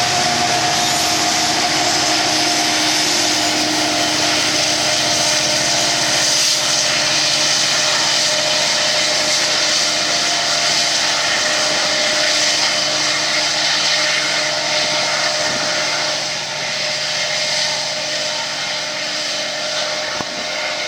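Diesel locomotives of a loaded coal train pulling hard up a grade: a steady engine drone with a strong hiss. The drone sinks slowly in pitch and eases a little in loudness over the last several seconds.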